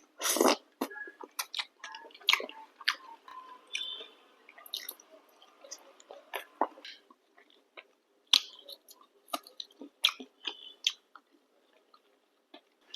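Close-miked chewing and wet mouth sounds of someone eating, a run of irregular short clicks and squelches with a couple of pauses.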